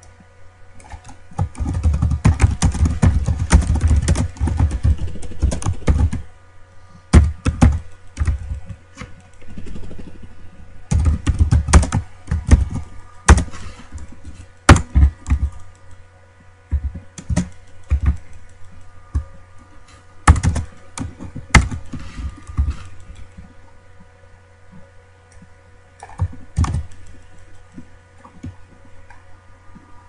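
Typing on a computer keyboard: a fast, steady run of keystrokes for the first few seconds, then shorter bursts and single key presses with pauses between them.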